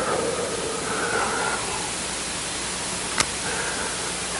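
Steady hiss of room tone and recording noise in a pause, with faint tones that come and go and a single sharp click about three seconds in.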